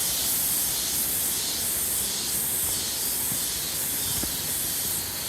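Cicadas buzzing in a high, pulsing chorus that swells about twice a second.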